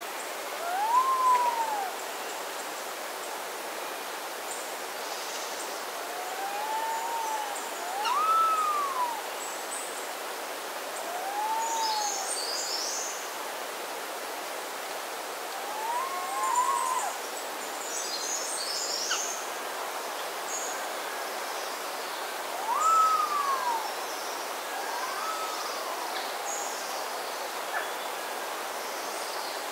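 Resplendent quetzal calling: a series of mellow whistled notes, each rising then falling in pitch, spaced irregularly and sometimes in quick pairs. Beneath them runs a steady forest hiss, with faint high twittering from other small birds a couple of times.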